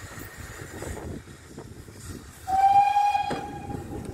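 Steam locomotive whistle: one steady blast starting about two and a half seconds in, loudest at first, then held on more faintly. It sounds as the train departs, right after the guard's green flag, as the driver's acknowledgement of the right-away.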